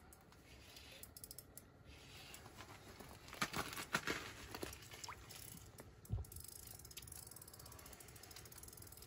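Fishing reel being cranked to bring a burbot up through an ice hole, its gears making a faint, fast run of clicks with a few louder ticks.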